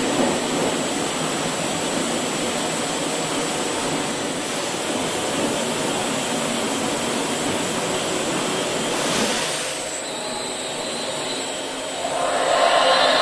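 Autopulit MA-250x2500 automatic brush satin-finishing machine running, its abrasive brush wheels spinning against a metal aircraft fitting with a steady, loud noise. It drops slightly about ten seconds in, then rises louder with a steady whine near the end.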